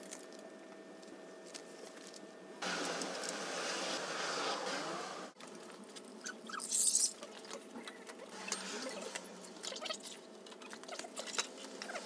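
Handling noises of a motorcycle's spoked rear wheel being worked into place: rustling and rubbing, then a short bright hiss about seven seconds in, followed by scattered light metallic clicks.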